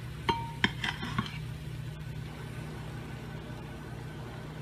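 A metal measuring cup taps and clinks a few times against the waffle iron's plates as batter is poured and spread, one tap briefly ringing; after about a second only a steady low hum is left.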